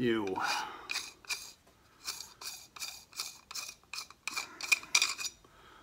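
Threaded metal end cap of a MAC 9mm suppressor tube being unscrewed by hand: a run of short, scraping rasps of thread grinding on thread, about two a second, one with each twist.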